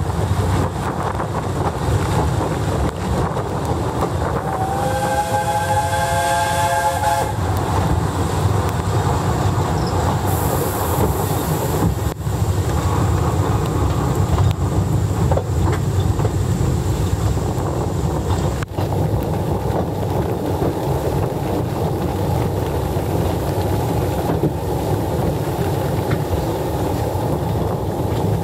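Narrow-gauge steam train running, heard from an open carriage window: a steady rumble of the coaches with wind buffeting the microphone. About five seconds in, the locomotive's steam whistle sounds once, a chord of several steady tones lasting nearly three seconds.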